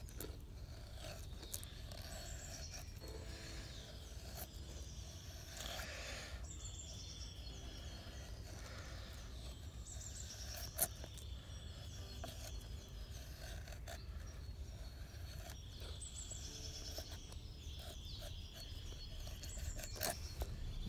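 Fixed-blade knife shaving thin curls down a split wooden stick in repeated short scraping strokes, making a feather stick, with birds singing in the background. A single sharp knock about eleven seconds in is the loudest moment.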